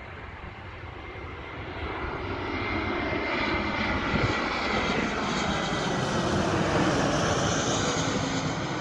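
Airbus A320neo's Pratt & Whitney PW1100G geared turbofan engines on final approach, passing low overhead. The jet noise swells over several seconds and is loudest near the end, with a high whine that drops slightly in pitch as the airliner goes over.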